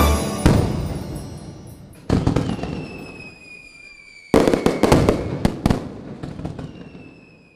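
Fireworks sound effect: sudden crackling bursts, one about half a second in, another about two seconds in, then a cluster of several between four and six seconds in. Each fades away with a faint high whistle sliding down in pitch.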